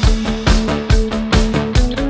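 Background music with a steady driving beat and held guitar-like notes.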